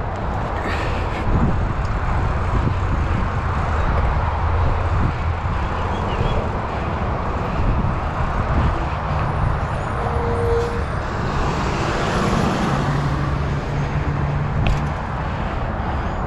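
Steady rush of wind on the microphone while riding, with road traffic passing; a vehicle's low engine hum comes in over the second half.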